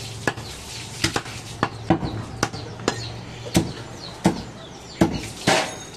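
A butcher's cleaver chopping mutton on a wooden block: about ten sharp chops, unevenly spaced, roughly one every half second to second.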